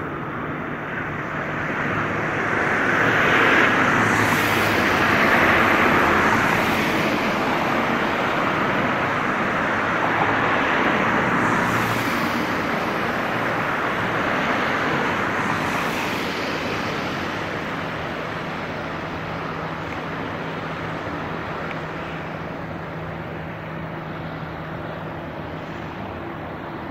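Airbus A340-300 on final approach, its four CFM56 engines making a continuous rushing jet noise. It swells a few seconds in and then slowly eases off.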